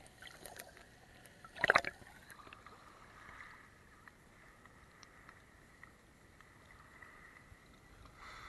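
Sea water splashing over a camera held at the waterline: one short loud splash about two seconds in, then faint lapping of small waves.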